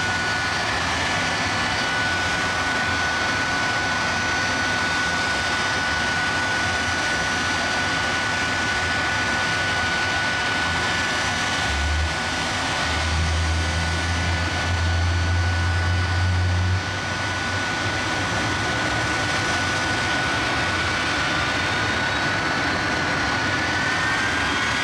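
Jet engines of a three-jet Mack show truck idling with a steady high whistle over a broad rush. About halfway through, a deeper rumble swells in for about five seconds, then drops away.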